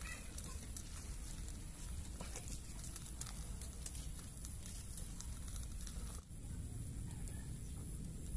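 Faint crackling of a small wood fire heating a tin can of rubber scraps in cooking oil as the rubber melts, with a few light clicks as the sticks are tended.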